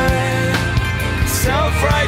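Rock song with a steady drum beat and sustained chords; the singer is between lines.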